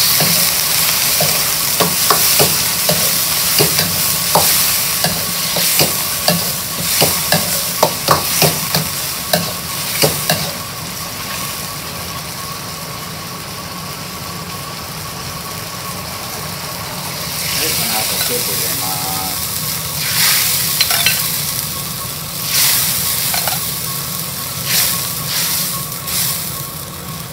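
Cooking sake poured into a hot iron wok of stir-fried chicken, hissing and sizzling loudly at first, then bubbling. A utensil scrapes and knocks against the wok many times in the first ten seconds or so, with more scattered knocks and a renewed sizzle from about two-thirds of the way in.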